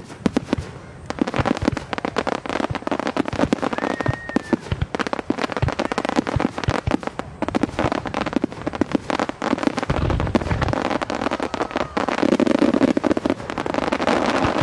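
Aerial firework shells bursting in quick succession: a dense barrage of bangs and crackles that thickens about a second in and is heaviest near the end.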